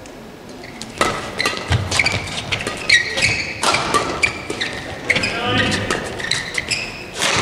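Badminton doubles rally: after a quiet second, the serve and a run of sharp racket strikes on the shuttlecock, mixed with court shoes squeaking on the court mat and thudding footfalls.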